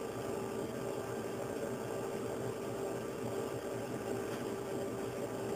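A steady hum and hiss with a constant low tone and no distinct events.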